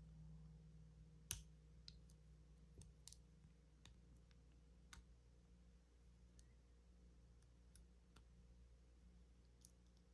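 Faint, irregular clicks of a lock pick and tension wrench working the wafers of a wafer-type lockout-tagout padlock, with one sharper click about a second in, over a low steady hum.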